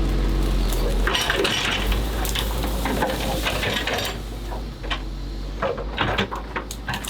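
Hard clattering and scraping from a toy excavator working, with many sharp clicks. A steady low hum fades about a second in.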